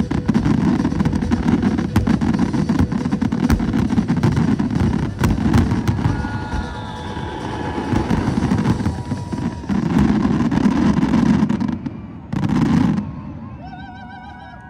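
Fireworks display: a dense run of booms and sharp crackling with a deep rumble, swelling in a few louder surges and stopping suddenly near the end.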